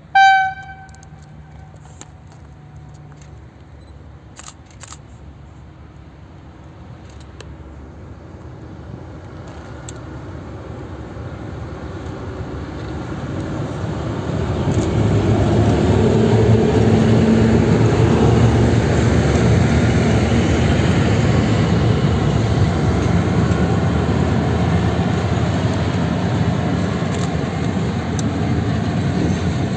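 Freight train led by an ST44 diesel locomotive approaching and passing close by. The locomotive's two-stroke V12 diesel engine and the wheels build up over about fifteen seconds, then hold loud and steady as the long rake of open wagons rolls past. A short ringing tone sounds right at the start.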